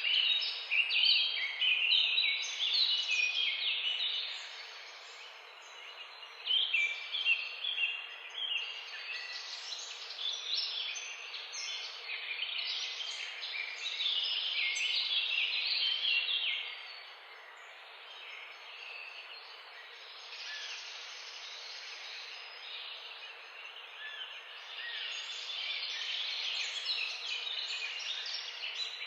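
An electronic sound-effect circuit playing through a small speaker: fast, bird-like chirping of high tones that jump quickly from pitch to pitch. It goes quieter for a few seconds near the start and again through much of the second half.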